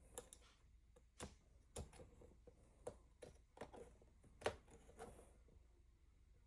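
Faint, irregular clicks and snips of a sign print being trimmed by hand with a cutting tool, about a dozen in all, the loudest about four and a half seconds in.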